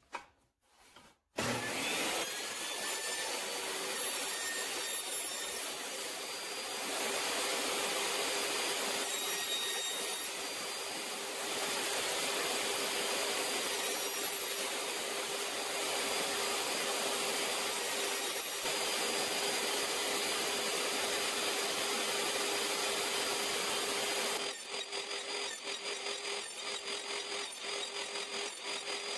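Portable table saw running with its blade tilted to 30 degrees, bevel-cutting the edges of small quarter-inch cedar blanks, a steady whine with a constant hum beneath it. It comes in about a second in, and near the end it turns choppy and uneven.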